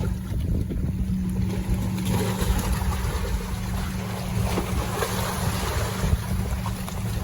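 Wind buffeting the microphone aboard a boat at sea, over a steady low hum.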